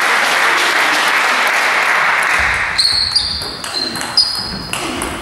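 Crowd noise in the hall for about the first two seconds, then a table tennis rally: the ball struck by the rackets and bouncing on the table, sharp clicks with a short high ring about two a second.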